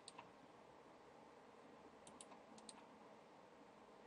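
Near silence broken by a few faint computer mouse clicks: one near the start, then two quick pairs about two seconds in.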